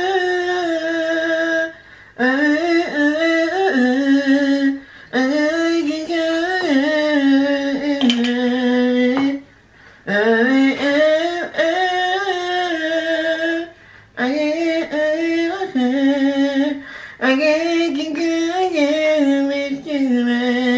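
A man singing an R&B melody unaccompanied, in high sustained phrases with short breaks for breath between them.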